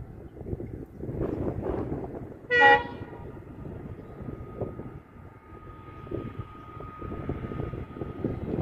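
WDP4D diesel locomotive's horn sounding one short blast about two and a half seconds in, over the low rumble of the approaching train.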